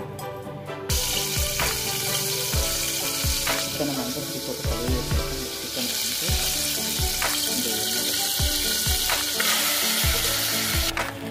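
Hot oil sizzling in an aluminium pressure cooker, starting about a second in and cutting off suddenly near the end, over background music with a steady beat.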